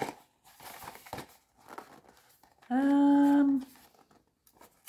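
Faint rustles and taps as a small cardboard toy box is handled, then a woman hums one held, steady note for about a second.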